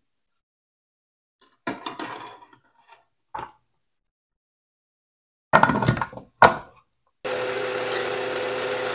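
Kitchen clatter: a few knocks and clanks of utensils, the loudest about two-thirds of the way through, then a steady humming run of an appliance for the last couple of seconds.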